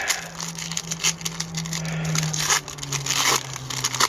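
Foil wrapper of an Upper Deck Series One hockey card pack being torn open and peeled back by hand, crinkling and crackling in irregular bursts. A low steady hum runs underneath.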